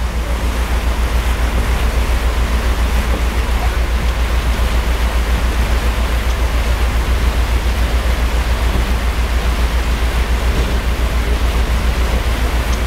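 Boat engine running with a low, evenly pulsing throb, over the steady rush of churned water and wind on the microphone.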